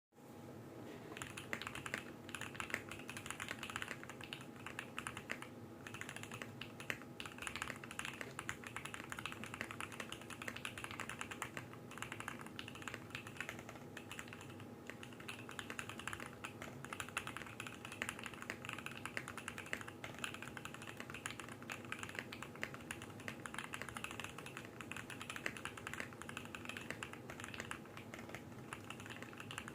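Continuous fast typing on a custom 65% mechanical keyboard: a Tofu65 acrylic case with a brass plate and lubed, filmed Alpaca v2 linear switches, giving a dense stream of keystroke clacks, with a steady faint hum underneath.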